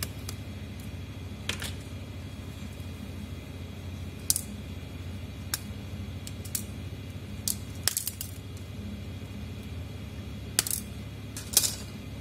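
Sharp, irregular plastic and metal clicks and taps, about a dozen, as a Redmi 4A smartphone is pried apart by hand and its inner frame unclipped from the back housing. A steady low hum lies underneath.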